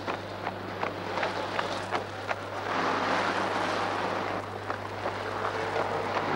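A runner's footfalls on a paved road, crisp steps about three a second, over a steady low hum. From about midway a broad rushing noise swells up and covers them.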